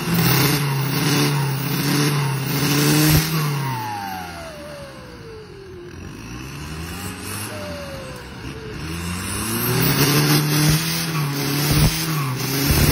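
Turbo-diesel engine of an off-road car stuck in a muddy ditch, revving hard, dropping off, then surging up twice more as it strains to climb out. A whistle falls in pitch each time the revs drop.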